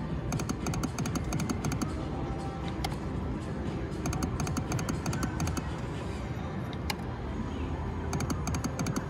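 Slot machine play: music over a busy background, broken three times by short runs of rapid clicking.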